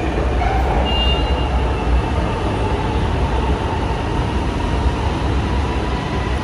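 Orange Line metro train moving along the station platform: a steady low rumble of wheels on rail, with a faint steady whine above it.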